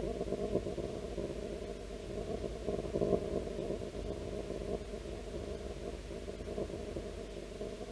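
A steady low droning hum, with a few brief soft swells about half a second in and around three seconds in.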